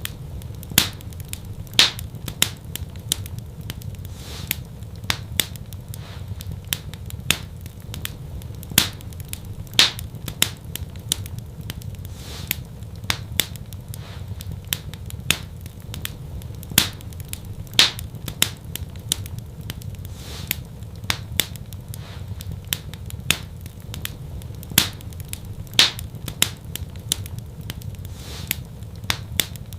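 Wood fire crackling in a fireplace: a steady low rumble of burning with frequent sharp pops and snaps at irregular intervals.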